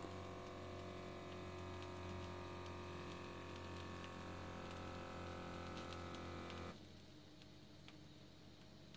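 Microlife BP A6 BT blood pressure monitor's small air pump humming steadily as it inflates the arm cuff. The pump stops abruptly about two-thirds of the way through, once the cuff has reached full pressure.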